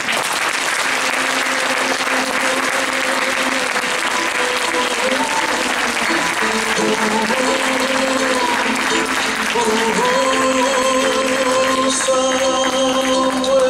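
Audience applauding over background music. The applause dies down about twelve seconds in, and the music continues alone.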